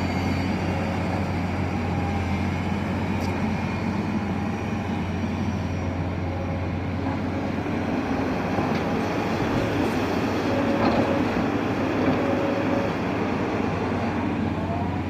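Excavator's diesel engine running steadily under work, a continuous low drone with machinery noise and a few faint clicks and knocks.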